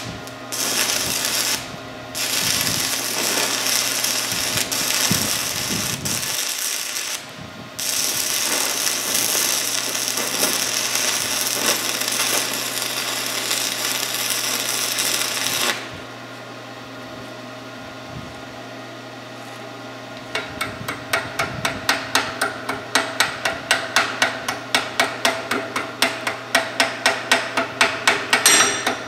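Forney Easy Weld 110 stick welder's arc crackling and hissing steadily for about sixteen seconds, breaking off briefly twice as the rod is restruck. Then a quieter low hum, and from about twenty seconds in a hammer chipping slag off the weld with sharp, even knocks, about two a second.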